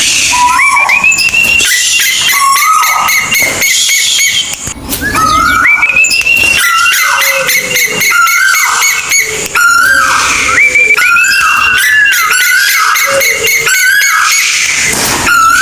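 Repeated whistled calls of the bird known locally as kolik tuwu: notes that slide upward and shorter notes that droop, coming one after another with only brief gaps, over a fast high crackle.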